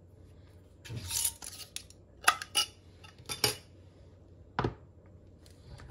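Open jars and their plastic lids being handled and set down on a plastic cutting board: a brief scuff about a second in, then several sharp clicks and knocks of jar and lid against the board and counter.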